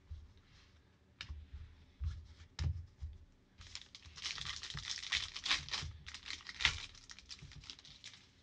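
A few light clicks as cards are set down on a table, then about four seconds of crinkling and tearing as a foil Panini Prizm football card pack is ripped open by hand.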